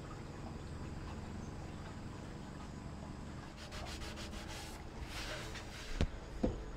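Paper towel rubbed over the metal exhaust chimney of a pellet grill: a run of quick wiping strokes in the middle, then two sharp knocks close together near the end.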